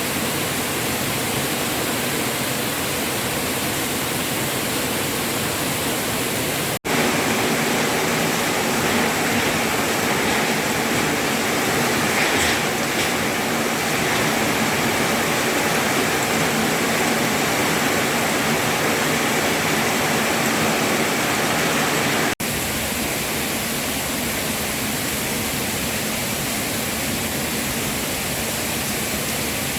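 Steady rushing noise with no distinct events. It drops out for an instant twice, about seven and about twenty-two seconds in, and the stretch between is a little louder.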